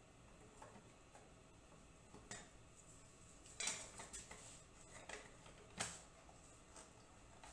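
A few faint clicks and light clatters as a router table's insert ring is set and twisted into its insert plate. The clearest come about three and a half seconds in and again near six seconds.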